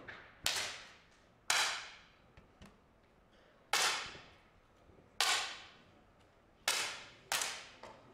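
10 m air pistols firing in turn: six sharp pops spread over about seven seconds, each trailing off briefly, with a fainter shot right at the start.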